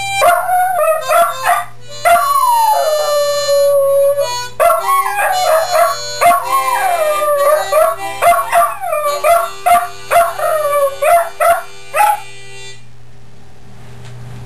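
A dog howling along to a blues harmonica: repeated sliding, mostly falling wails over the harmonica's held chords. Both stop a little before the end, leaving a steady low hum.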